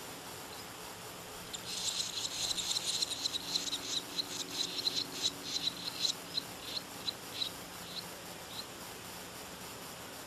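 Swallow nestlings begging from a mud nest: a quick run of high, thin chirps starts about a second and a half in, then slows to spaced single chirps and stops a little before the end.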